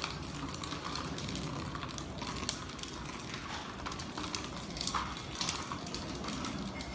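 A clear plastic dome sliding over a tiled floor, making a faint scraping with scattered light clicks and taps over a steady hiss.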